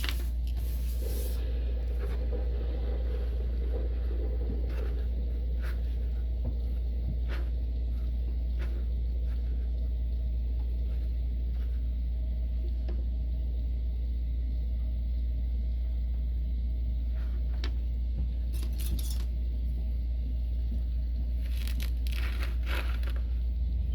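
Kinetic sand being cut and squished with shape tools: scattered soft scrapes and small clicks, with a few louder scraping strokes near the start, about three-quarters of the way in and near the end. A steady low hum runs underneath throughout.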